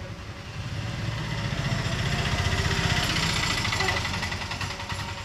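A machine running with a rapid, even pulsing, growing louder toward the middle and then easing off.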